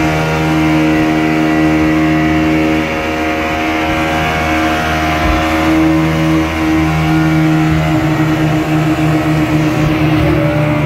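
Outboard motor of a small speedboat running steadily at speed, mixed with the rushing hiss and splash of the wake and waves against the hull.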